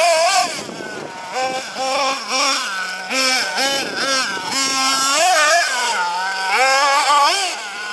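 Small nitro engine of a Hobao Hyper ST RC truggy running hard and revving up and down as it is driven, its pitch rising and falling every second or so.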